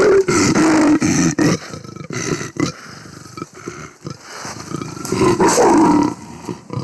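Leopard snarling and growling from inside a wire cage trap, furious at being caught: a loud bout at the start, quieter sounds in the middle, and another loud snarl about five seconds in.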